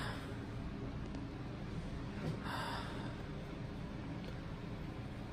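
A person's single heavy breath out about two and a half seconds in, over a steady low room hum.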